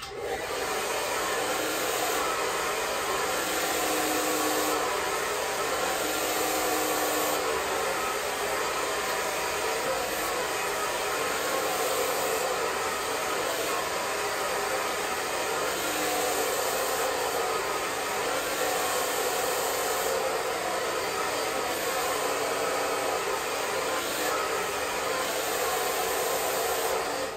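Handheld hair dryer running steadily, blowing onto hair.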